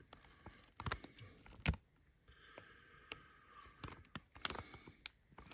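Scattered light clicks and taps of small objects being handled, the sharpest about a second and a half in, with a faint steady whine for about two seconds in the middle.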